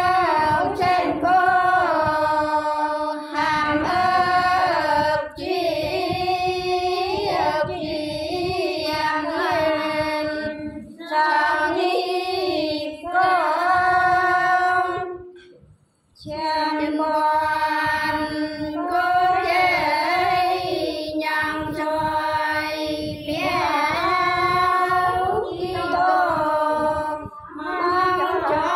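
Unaccompanied Sán Dìu soọng cô folk singing by elderly women: a slow, melismatic chant of long held, wavering notes, with a short break about halfway through before the singing goes on.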